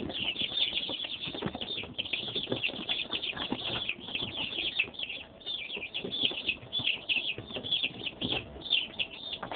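A brood of young chickens peeping nonstop, many short high-pitched cheeps overlapping, with occasional soft low knocks.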